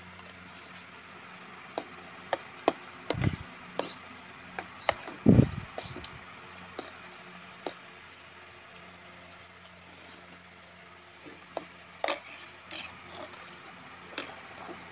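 Steel spoon clinking and scraping against a steel dish while eating: scattered sharp clicks, busiest in the first half and again around twelve seconds in, with two dull knocks about three and five seconds in.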